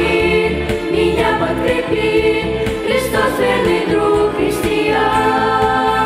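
Youth vocal group of boys and girls singing a Russian-language Christian song into microphones, several voices together in held notes over an instrumental backing.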